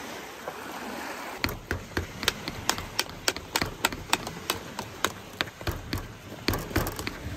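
Hand potato masher pounding boiled potatoes in a stainless steel pot: a run of sharp knocks, about three a second, as the metal masher strikes the pot. The knocking starts about a second and a half in.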